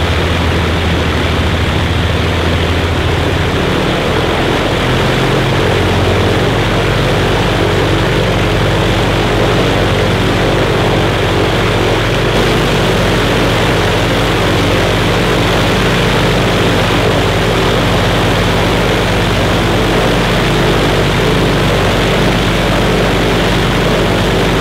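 Avro Lancaster's Rolls-Royce Merlin V12 engines running on the ground, a steady propeller drone with a rushing wash. The engine note rises about five seconds in and then holds steady.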